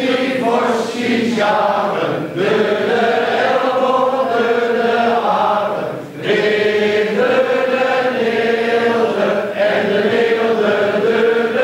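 A theatre cast singing a song together as a group in Huizen dialect, in long held phrases with two short breaks between them.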